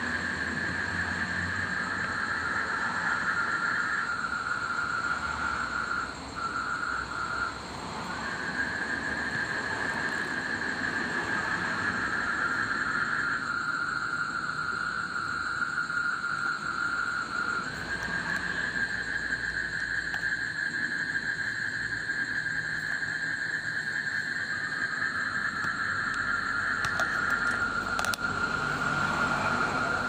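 A chorus of frogs calling at night: a dense, continuous high trilling that holds steady, its pitch stepping between two close bands now and again, with a fainter steady higher tone above it.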